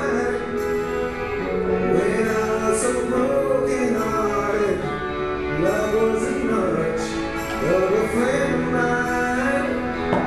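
Background music: a song with a singing voice over instrumental backing.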